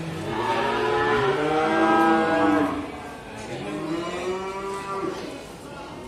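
Cattle mooing: a long, loud moo, then a second, quieter moo about halfway through.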